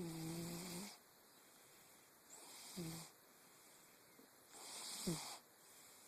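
A cat snoring: three snores about two seconds apart, each a short breath with a low buzz and a hiss.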